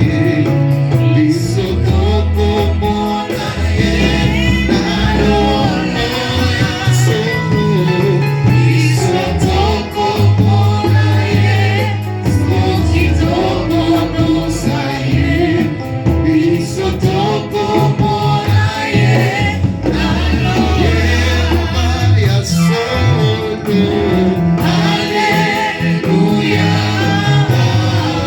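Gospel music with singing: voices over instruments with a strong bass line.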